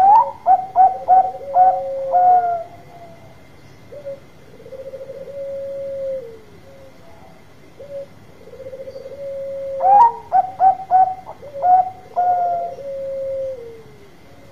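Caged zebra dove of the large-voiced Bangkok type cooing: two song phrases about ten seconds apart, each a quick run of five or six short staccato notes followed by a long rolling coo. Softer rolling coos come in between.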